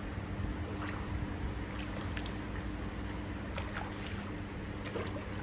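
Pond water splashing and sloshing as koi nets are worked through it to catch a fish, with several short splashes over a steady low hum.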